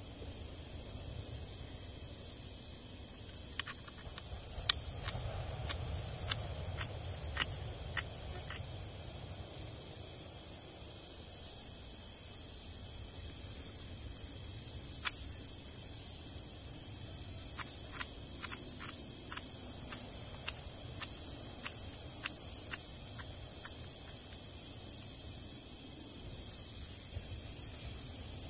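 A steady, high-pitched insect chorus, with two runs of sharp, irregular taps from a knife chopping green chillies and coriander on a stone slab.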